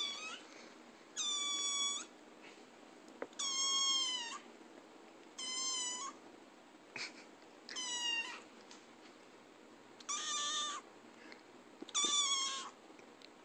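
A grey kitten meowing again and again: about seven short, high-pitched meows, one roughly every two seconds.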